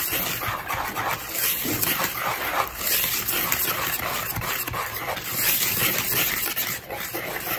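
Wire whisk scraping and swishing through dry flour and cornmeal in a plastic mixing bowl, in a quick run of short strokes.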